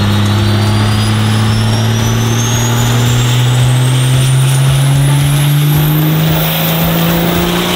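Compound-turbocharged Cummins diesel making a full-load dyno pull. The engine note climbs slowly and steadily in pitch while a high turbo whistle rises with it, peaking about six seconds in.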